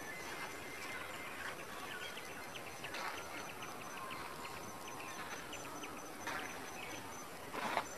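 Rural field ambience: many short bird chirps and calls over a steady high insect buzz, with one brief louder noise near the end.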